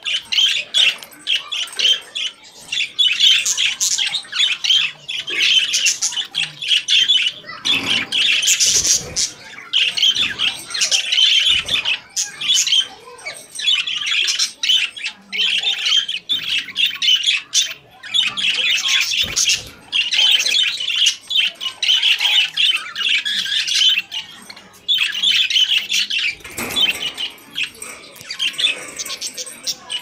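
Budgerigars chattering and warbling almost without pause, a busy stream of high chirps, squeaks and squawks with only brief gaps. A few dull knocks come through among the calls.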